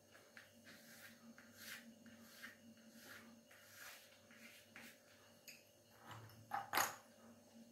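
Chalk rubbing on a board in short, faint strokes about every half second as an area is shaded in, with one louder scrape or knock near the end.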